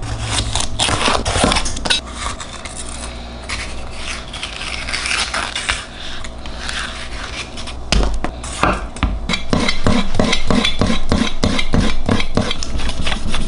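Damascus-pattern chef's knife cutting a red bell pepper on a wooden cutting board: irregular slicing and scraping at first, then from about eight seconds in a quick, even run of knife strokes hitting the board as the pepper is diced.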